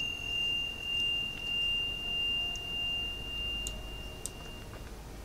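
A struck chime ringing out on one high, pure tone, pulsing slowly in loudness as it rings, and dying away just before the end.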